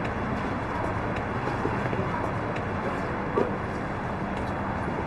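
Steady background noise with one short knock about three and a half seconds in.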